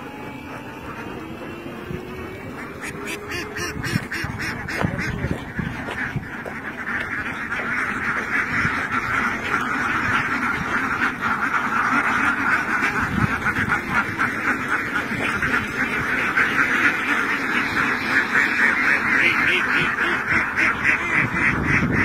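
A large flock of domestic ducks quacking all together in a dense, continuous chatter, swelling louder over the first several seconds.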